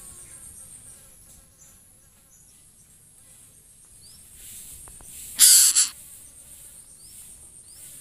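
Insects trilling steadily in a high pitch, with a loud, brief hissing rustle about five and a half seconds in.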